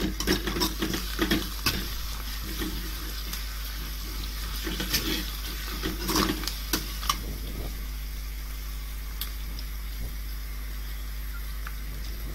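Slotted metal ladle scraping and stirring frying onions, green chillies and herbs in an aluminium kadai, over a steady sizzle of oil. The stirring stops about seven seconds in, leaving only the sizzle.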